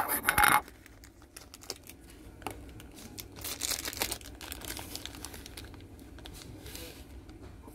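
Clear plastic bag around a small figure crinkling as it is handled: a loud burst of crinkling in the first half-second, then softer rustles about three and a half seconds in and near the end, with a few light clicks between.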